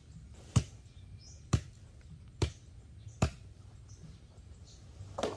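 Machete chopping into branches: four sharp chops about a second apart, then a softer knock near the end.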